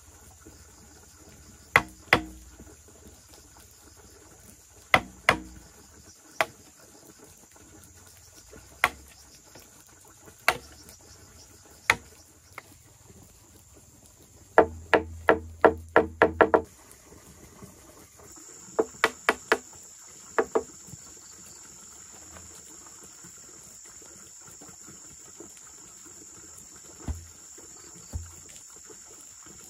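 Sharp knocking blows, single and in pairs, with a quick run of about eight strikes around the middle, heard over a steady high drone of insects.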